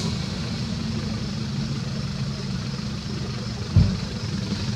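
Low, steady engine-like rumble, with one short thump near the end.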